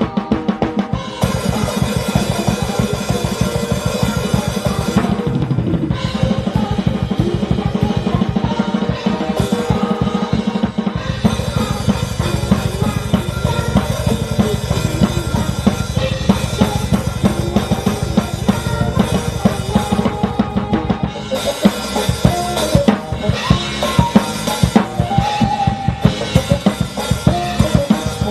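Acoustic drum kit played fast and hard: rapid bass-drum and snare hits with rolls and crashing cymbals, along with recorded music. The cymbals drop out briefly about five seconds in and again around eleven seconds.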